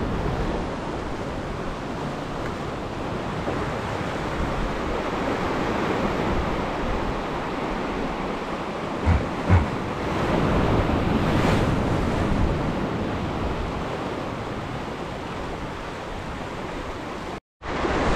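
Surf washing against the shore, with wind buffeting the microphone: a steady rushing noise that swells and eases. Two short low thumps come about nine seconds in, and the sound drops out for a moment near the end.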